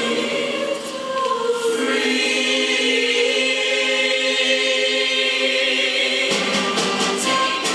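High school show choir singing in full harmony, holding a long sustained chord through the middle. The texture changes about six seconds in.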